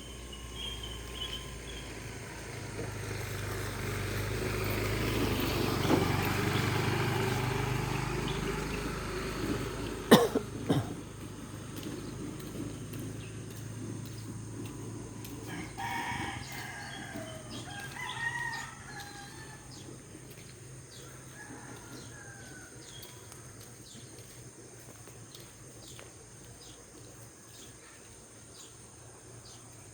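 A rooster crowing, with pitched calls bending up and down a little past the middle. Earlier there is a swelling rumble with a low hum that peaks and fades, and two sharp knocks come about ten seconds in.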